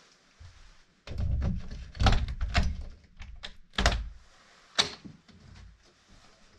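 A run of thumps and knocks, the loudest about four seconds in, then an interior door's latch clicks and the door is pushed open.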